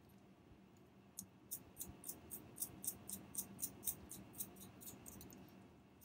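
Small nuts being threaded by hand onto the screws of an acrylic camera mounting plate: a run of light, high-pitched clicks, about three or four a second, starting about a second in and fading out near the end.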